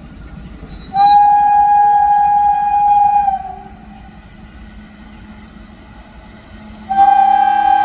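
WAG-7 electric locomotive's air horn sounding two steady single-pitch blasts: one of about two and a half seconds starting a second in, and a second starting near the end and still sounding. A low rumble runs underneath.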